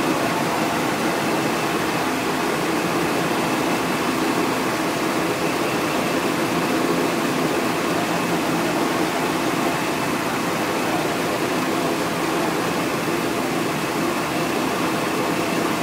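Supercharged, fuel-injected straight-six of a 1959 Austin-Healey 3000 idling steadily, with no revving.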